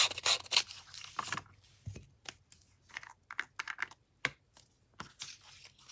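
Paper strips and craft supplies handled on a table: scattered, irregular light taps and rustles as a strip of design paper is picked up and a glue bottle is brought to it.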